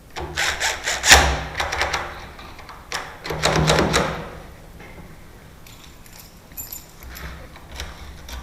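A power tool run in two short bursts on the lock fitting, each lasting a second or two, followed by quieter scraping and clicks near the end.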